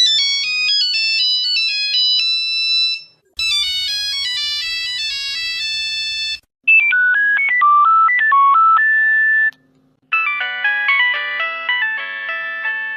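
Nokia mobile phone ringtones: four short electronic melodies, each about three seconds long and each with its own sound, played one after another with brief gaps between them.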